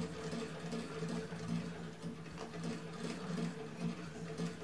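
Usha treadle sewing machine running under foot pedalling, its needle punching through a sheet of paper with no thread, making a steady rhythmic mechanical clatter with light clicks.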